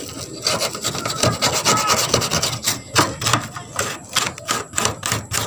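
Quick repeated rubbing and scraping strokes by hand against a rusted sheet-metal roof beside the bolt heads.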